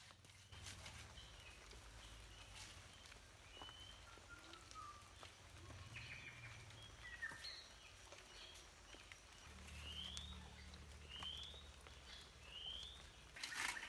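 Faint birds calling: scattered short chirps, then three short rising chirps about a second apart near the end. A single sharp knock just before the end is the loudest sound.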